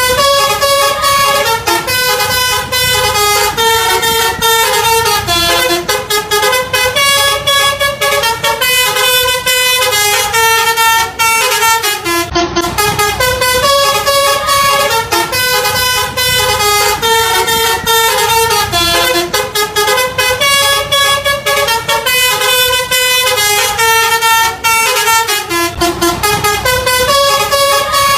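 Basuri 'telolet' multi-tone bus air horn playing a melody, loud and without pause, its notes stepping up and down every fraction of a second.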